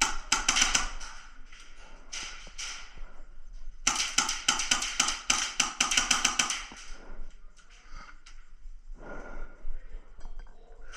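Airsoft guns firing rapid strings of sharp clicking shots: a burst at the start, a short one about two seconds in, and a longer fast string of about eight to ten shots a second from about four to seven seconds in.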